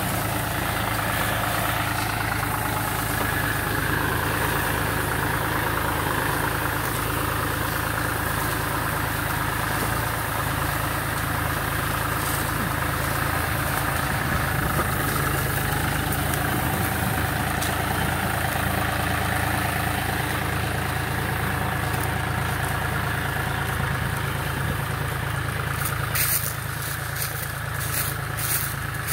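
Tractor engine running steadily while it drives a mounted HTP spray pump. A few sharp clicks come near the end.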